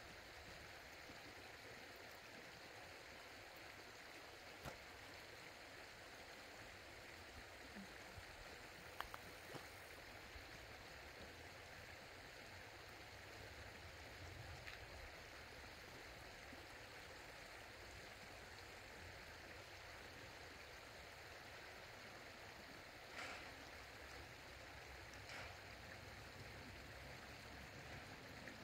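Near silence: the faint, steady rush of a stream flowing under the road bridge, with a few faint ticks.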